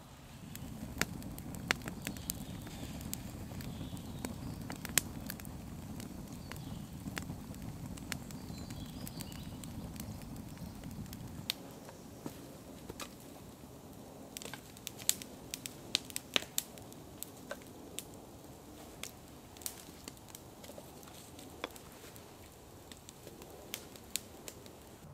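Wood campfire crackling, with sharp pops and snaps scattered throughout. A low rumble sits under the crackles for about the first half and stops abruptly about halfway through.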